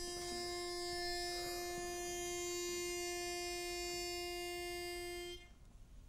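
Pitch pipe blown: one steady reed note held for about five seconds, then cut off sharply. It gives the barbershop quartet the starting note for its next song.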